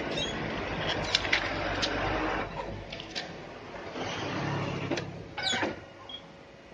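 Handling of a Canon iR3300 photocopier: the document feeder lid is lifted and shut over an original on the glass, with rustling and several sharp plastic clicks. A short squeaky rattle comes about five and a half seconds in, just as the start button is pressed.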